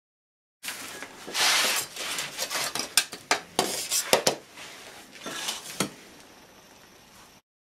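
A metal hand trowel scraping through and scooping sifted sand, with several sharp taps among the scrapes. It starts about half a second in and grows fainter toward the end.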